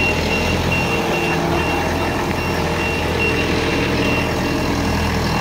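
A heavy vehicle's reversing alarm beeping in a high, evenly repeating pattern over the low steady rumble of its engine running.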